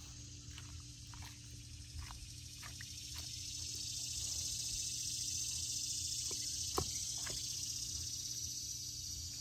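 A high, steady insect buzz swells up over a few seconds, holds, and fades near the end. Over it come a few light clicks from a knife cutting turtle meat from the shell, the sharpest about two-thirds of the way through.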